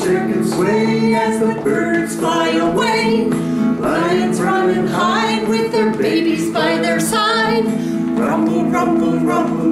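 A children's song playing: singing voices with vibrato over a steady instrumental accompaniment.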